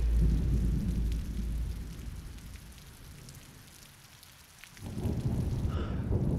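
Deep, low rumble with a faint hiss above it. It fades away over about four seconds, then swells back abruptly a little before the end.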